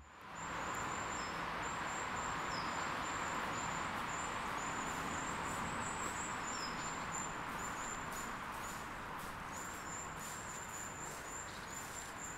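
Woodland ambience: a steady background hiss with small birds giving high, rapidly repeated chirps throughout.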